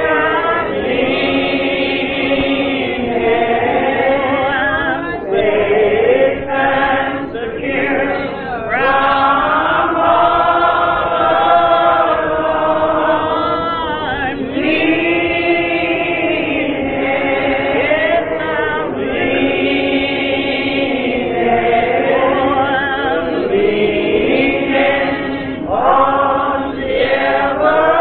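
Church choir singing a gospel song, the voices holding long notes that waver in pitch, with brief breaths between phrases.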